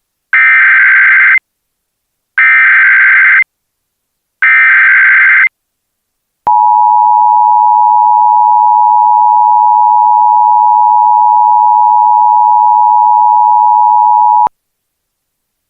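Emergency Alert System alert header: three one-second bursts of SAME digital data, about a second apart, then the steady two-tone EAS attention signal, held for about eight seconds before it cuts off. This sequence marks the start of an emergency alert broadcast.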